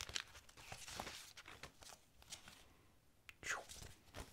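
Paper stickers rustling and scraping as hands shuffle through a stack of them, with a sharper scrape of one sticker sliding off the pile about three and a half seconds in.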